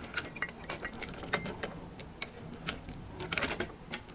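Irregular light clicks and rattles of small plastic parts and wiring being handled: the electronic capsule of a Somfy tubular motor. A short, denser scraping rattle comes about three and a half seconds in.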